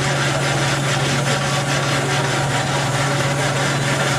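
Miniature steam traction engine running, its single cylinder giving quick, even exhaust beats over a hiss of steam, with a steady low hum underneath.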